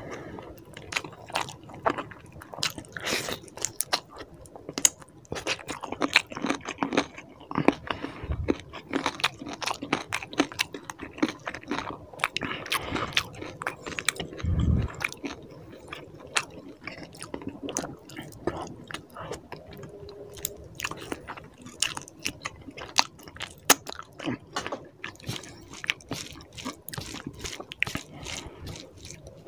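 Close-miked chewing and biting of chicken curry and rice eaten by hand, with a dense run of wet mouth smacks and clicks. Two dull low thumps come at about a quarter and halfway through.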